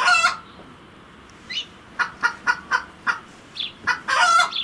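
A chicken clucking: a run of short clucks, with a longer drawn-out cackle at the start and again near the end.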